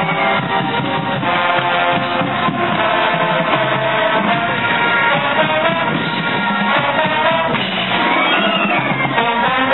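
College marching band playing on the field, brass section carrying the tune.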